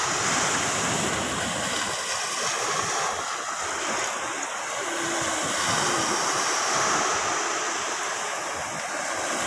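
Ocean surf washing onto a sandy beach: a steady rush of small breaking waves that swells and eases gently.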